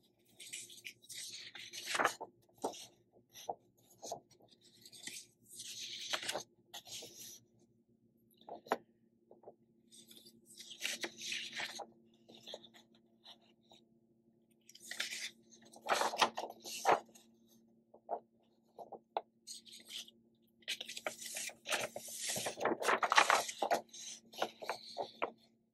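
Sheets of paper rustling and sliding against each other as they are picked up, held and shuffled through by hand, in scattered bursts with quiet gaps between.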